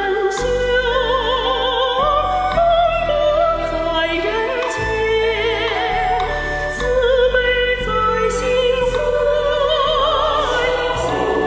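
A song: a singer in an operatic style with wide vibrato, over instrumental accompaniment of sustained chords whose bass notes change every couple of seconds.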